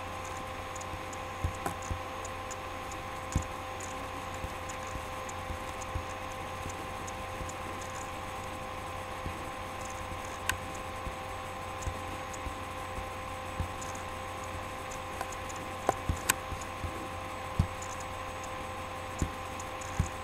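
Steady electrical hum with about ten sharp clicks and taps scattered through it, from a computer keyboard and mouse being used.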